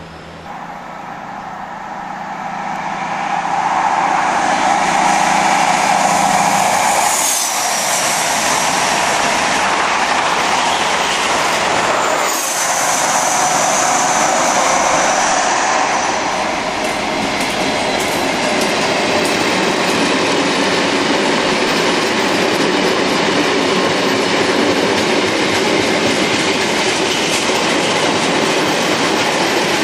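Trains running past on the track: the sound swells over the first few seconds, breaks off abruptly twice, and then settles into the steady noise of a long freight train of wagons hauled by a Class 66 diesel locomotive.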